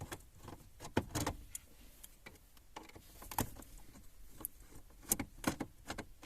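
Phillips screwdriver unscrewing small screws: scattered light clicks and scrapes of the bit and screws, a few sharper ticks among them.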